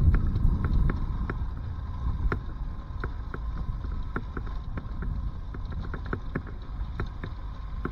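Motorcycle riding over a rough, loose-gravel track: low wind rumble on the microphone with many sharp, irregular clicks and knocks as the bike jolts over the stones.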